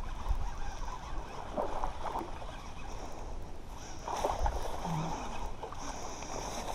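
Water splashing and sloshing as a hooked chain pickerel is reeled in to the bank, the strongest splashes about four seconds in.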